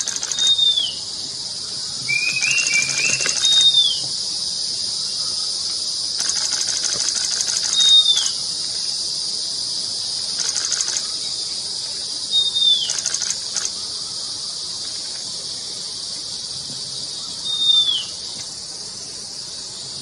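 Long-billed wren babbler singing: a short, clear whistle that slurs downward, given five times about every four to five seconds. A steady high insect drone, with pulses of a higher buzzing insect, runs underneath.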